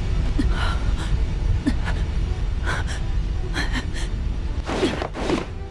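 A deep, steady rumbling drone under a boy's short, sharp breaths, ending in two voiced gasps of shock near the end.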